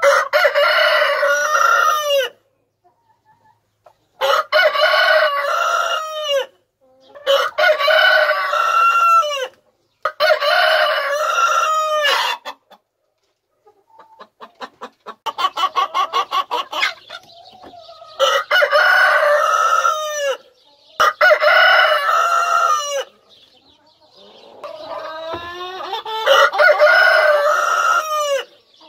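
A rooster crowing again and again: about seven crows of some two seconds each, with short gaps between them. A run of quick clucks comes near the middle.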